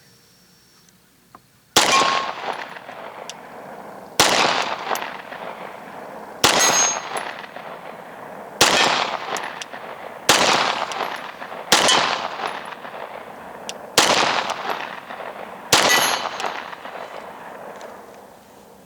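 Eight pistol shots from a Glock 23 Gen 4 fitted with a Lonewolf 40-to-9 conversion barrel, fired at a slow, steady pace about two seconds apart. Each shot is sharp and trails off in a long echo.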